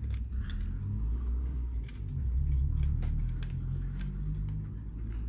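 A few light clicks and taps from laptop parts being handled, over an uneven low rumble.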